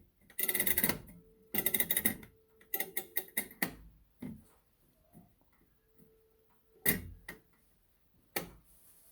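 Clicking and rattling from a grandfather clock's moon dial being turned by hand, in three short runs of rapid clicks, followed by a few single clicks.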